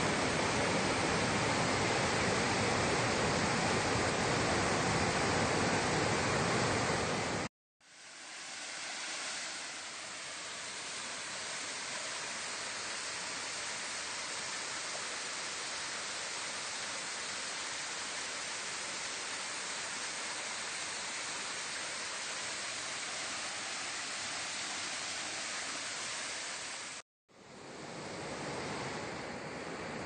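Rushing water of a rocky stream and a small waterfall spilling over stone ledges: a steady, even rush. It cuts out abruptly for a moment twice, about seven and a half seconds in and about three seconds before the end, and the middle stretch is lighter and less deep than the opening one.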